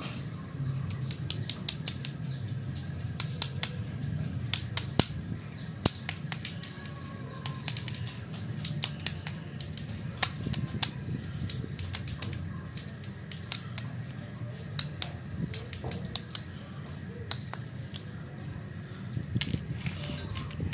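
Candy lollipops on sticks clicking and tapping against each other as they are handled and stacked: quick runs of sharp clicks with short pauses, over a steady low rumble.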